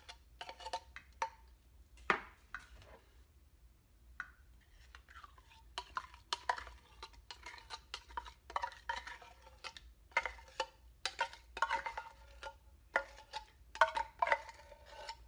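Metal spoon scraping and clinking inside an open tin can, scraping out condensed milk: irregular sharp clinks with a brief metallic ring, sparser for a couple of seconds near the start.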